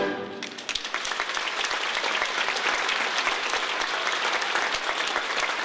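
Theatre audience applauding: dense, steady clapping that swells in about half a second in as the orchestra's last note dies away.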